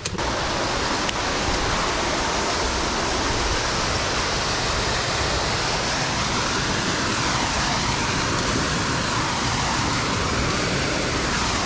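Waterfall: a steady, loud rush of falling water with no breaks.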